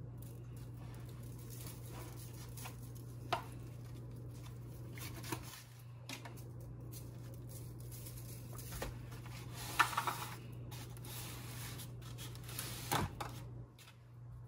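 Hands handling and turning a raw turkey in an aluminium foil roasting pan, with a few short crinkles and taps scattered through, over a steady low hum.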